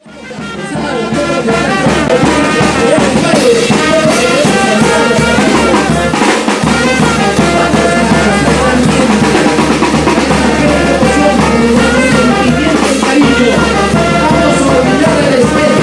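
A brass band with drums playing lively dance music, fading in at the start.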